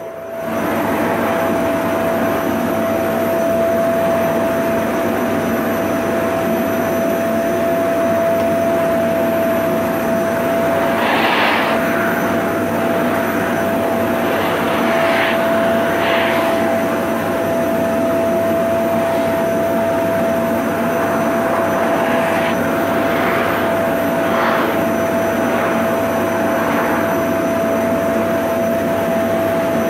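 Vacuum cleaner running steadily, its motor giving a constant whine over a dense rush of air. There are a few short hissing swishes in the middle and near the end.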